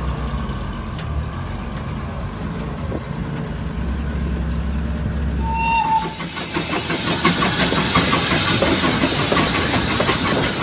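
The engine of an old US Army utility vehicle running as it drives off across grass. About six seconds in, the sound switches to a steam locomotive hauling wagons past, with hissing steam and a rhythmic beat from the train, louder than the engine.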